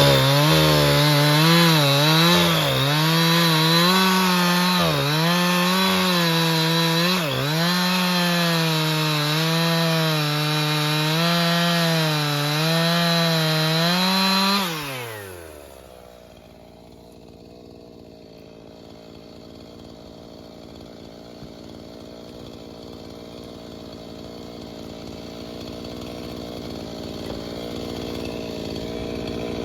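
Husqvarna chainsaw running at high revs while cutting hardwood, its engine note dipping and recovering as the chain bites. About fifteen seconds in the pitch falls and the saw winds down, leaving a much quieter low running sound.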